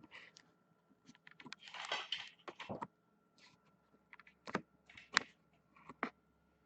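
Scattered light clicks and taps of handling at a desk, with a short rustle about two seconds in and three sharper clicks in the last couple of seconds.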